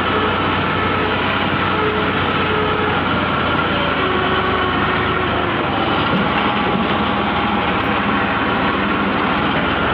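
Diesel tractor engine running steadily under way, heard close up from the driver's seat.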